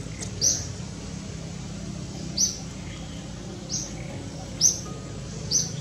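A bird calling with a short, high chirp five times, irregularly spaced about a second or two apart, over a steady low hum.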